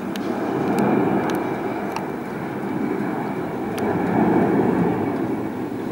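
Four-engined Airbus A340 jetliner climbing out after takeoff, its engines a steady rumble that swells slightly about four seconds in.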